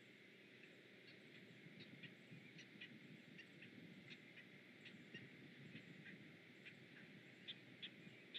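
Faint bird calls: a series of short, high chirps or ticks, irregular at a few a second, louder near the end, over a low steady rumble.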